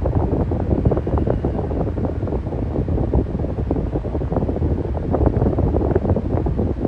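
Electric fan running steadily: a constant low rush of moving air with an irregular fluttering in it.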